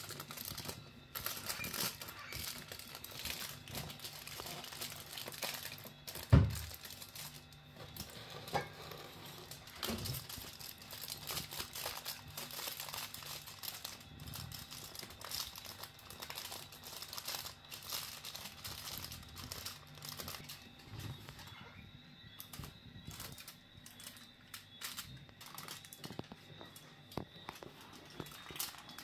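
Aluminium foil being folded and crimped by hand around a food parcel, crinkling on and off. There is one loud thump about six seconds in.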